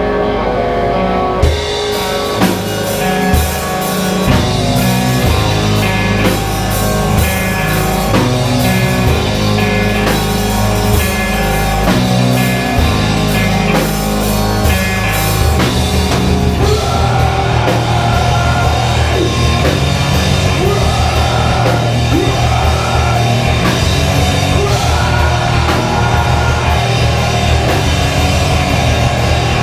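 Live emocore/hardcore band playing loudly, with distorted guitars, bass and drum kit. The full band comes in about a second and a half in, and the song shifts into a new section about halfway through.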